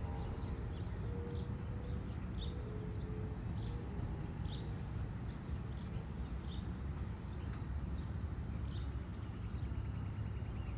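Small birds chirping about once a second over the steady low rumble of a departing NJ Transit passenger train.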